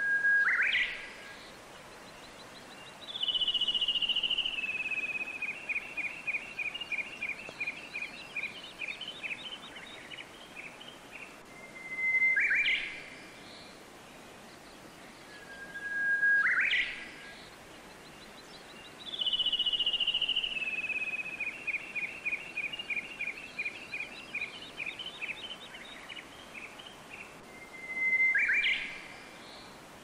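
A songbird singing in a repeating pattern. Four times a held whistle ends in a sharp upward flourish, and twice a long run of quick notes steps down in pitch over several seconds. Underneath is a steady hiss of running water.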